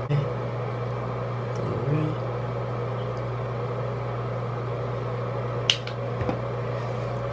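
A steady mechanical hum, like a fan, air conditioner or idling car heard from inside, with one sharp click a little more than five seconds in.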